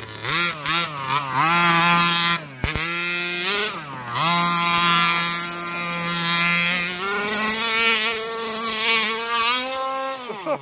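Rovan Q-Baja RC buggy's 29cc two-stroke petrol engine at full throttle: blipped up and down several times, then held at high revs for about six seconds, then dropping sharply toward idle near the end.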